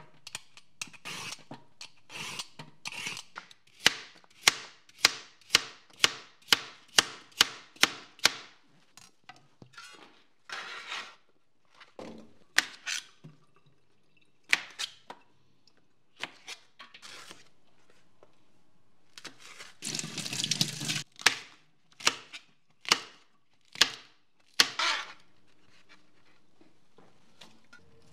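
Chef's knife chopping long green peppers on a cutting board: a run of sharp knocks about three a second, then slower, scattered cuts. A noisy swish lasting about a second comes about two-thirds of the way through.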